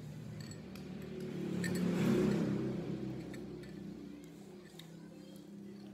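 A motor vehicle passing by, its engine swelling to a peak about two seconds in and then fading away. A few light clinks of a spoon against a bowl.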